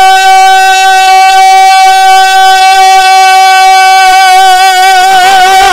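A man's voice holding one long sung note while chanting a line of Urdu poetry. The note stays flat for about five seconds, then starts to waver as the melody moves on near the end.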